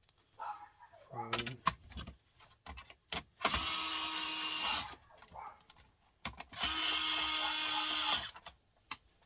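Power drill driving screws out of a printer in two runs of about a second and a half each, with a steady motor whine, and clicks and knocks of parts being handled between them.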